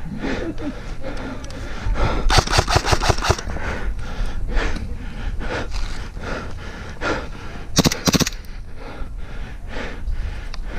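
Airsoft gun fired in a rapid burst of about eight shots a couple of seconds in, then a shorter burst of three or four shots near the end, with hard breathing between the bursts.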